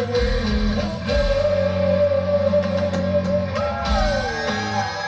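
A live rock band playing with a male lead singer, recorded from the audience. The singer holds one long note from about a second in, then the melody slides downward near the end, over guitar and a steady band backing.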